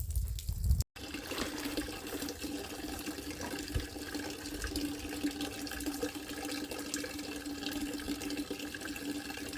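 Water running steadily from a tap, a rushing flow with a steady hum under it, starting abruptly about a second in.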